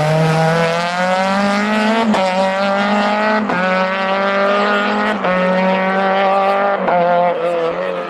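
Fiat Punto rally car's engine held at high revs as it pulls away up a street, with a sharp break at each of four quick upshifts.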